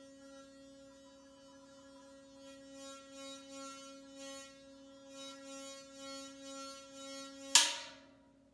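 Large stainless steel pot of water singing under friction: hands rubbing its metal handles keep it ringing with a steady low hum, with a pulsing swish from the rubbing strokes, two to three a second. A sharp, loud slap near the end cuts the tone off.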